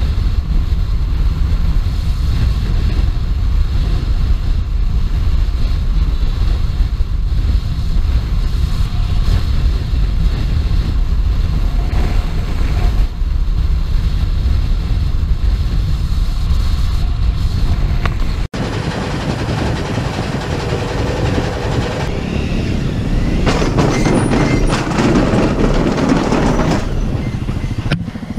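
Wind buffeting the microphone of a camera on a moving dirt bike, a steady low rumble over the dirt bike engines. About two-thirds through it cuts to a helmet-camera ride on a dirt bike, where the engine and bumps of the ride come through more clearly and grow louder for a few seconds near the end.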